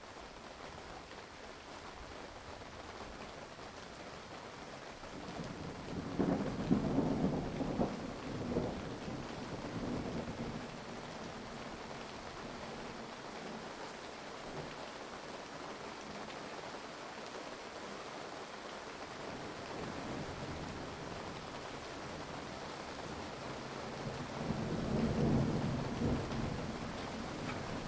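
Heavy rain falling steadily, with two rolls of thunder rumbling through it, the first about six seconds in and the second near the end.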